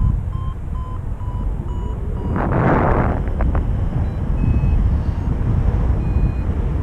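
Paragliding variometer beeping in short repeated tones whose pitch shifts from beep to beep, the audio signal of lift, over a steady low rush of wind on the microphone. About two and a half seconds in there is a brief burst of louder rushing noise.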